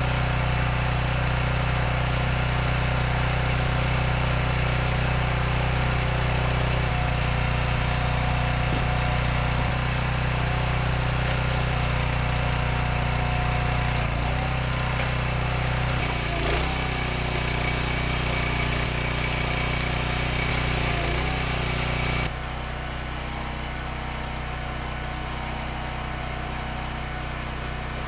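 Engine of a hydraulic log splitter running steadily while hickory logs are split, with a few short knocks and creaks in the middle. About two-thirds in, the sound drops suddenly to a quieter steady hum.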